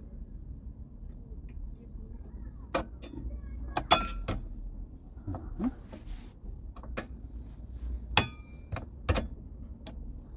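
Scattered metallic clicks, knocks and clinks from drum brake parts and tools being handled. Two of the clinks, about four and eight seconds in, ring briefly with a metallic tone. A low steady rumble sits underneath.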